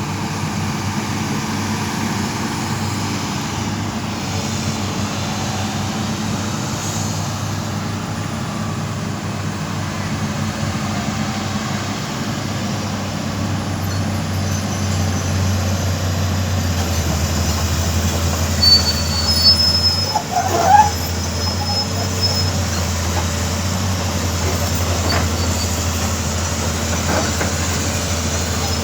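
Excavator's diesel engine running steadily, growing louder about halfway through as it works, with a few short metallic squeals and knocks a little after the midpoint.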